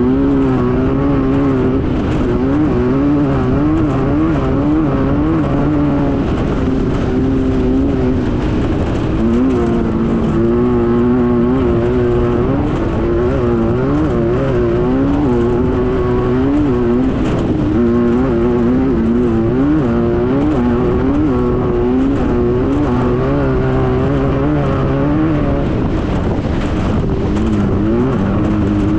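Air-cooled VW engine of a Class 9 desert race buggy running hard. Its pitch rises and falls every second or so as the throttle is worked, over a steady noisy rush.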